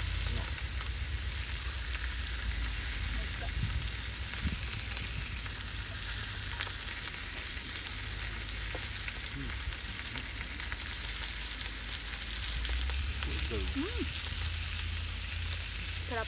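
Yakiniku meat frying in a pan over a tabletop burner: a steady sizzle, with a steady low rumble underneath.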